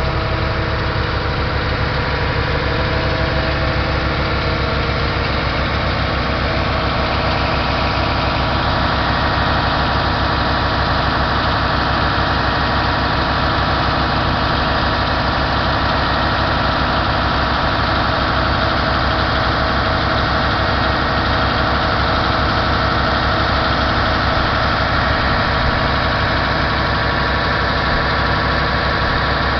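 Mercedes-Benz Actros 3236's V6 diesel engine running steadily at idle, its sound growing brighter in the upper range about eight seconds in.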